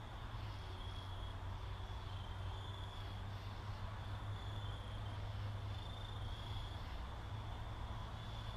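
Steady low background hum with a faint high-pitched tone wavering above it.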